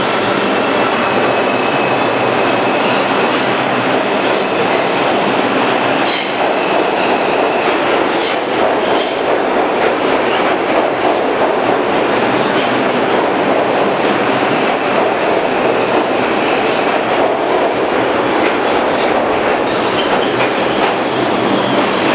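R142 New York City subway train pulling out of an underground station and running past on the rails. A steady, loud rumble of wheels and motors, with irregular clacks as the wheels cross rail joints.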